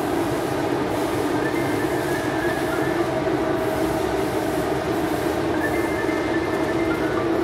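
Steady hum of a 100-ton hydraulic press brake's pump and motor running, with a faint high whine that comes and goes.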